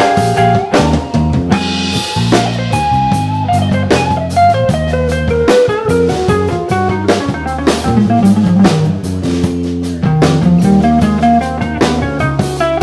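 Live jazz-fusion trio playing: electric guitar melody lines over electric bass and a Ludwig drum kit, with the guitar phrase stepping downward in pitch around the middle.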